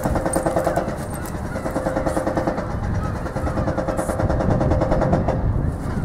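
Strong wind buffeting the microphone, with a buzzing tone from the model's 64 mm eight-blade electric ducted fan running in three short spells of a second or two each.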